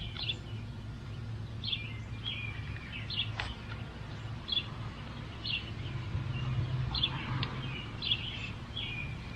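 A small bird calling with short high chirps, roughly once a second, over a steady low hum. A sharp click about three and a half seconds in.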